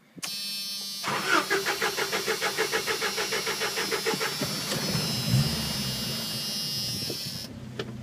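Jeep 2.5L four-cylinder engine cranked by the starter for about three seconds, catching with a short rise in revs, then settling into a steady idle with no knocking or ticking. The knock had come from lifters that the owner believes were sticky, and that a quart of ATF added to the oil has freed.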